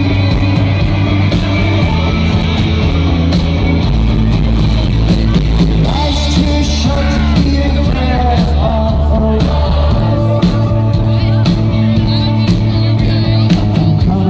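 Live rock band playing a song: a male lead singer over electric guitars, bass and drums, with the bass note changing every couple of seconds.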